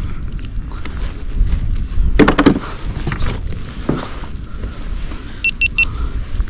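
Knocks, clicks and rustling from handling a large flounder on a kayak while the hook is worked out of its mouth, over a steady low rumble. Three quick high beeps sound near the end.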